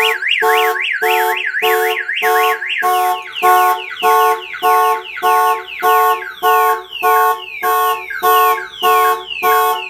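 Viper car alarm siren going off, tripped by the hood sensor as the hood is lifted: a rapid up-and-down warble for about three seconds, then changing to repeated falling tones. A pulsing steady tone sounds about twice a second throughout.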